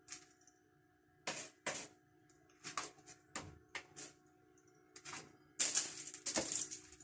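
Cat scratching with its paws after peeing: about a dozen short rasping strokes in uneven bursts, the loudest run near the end.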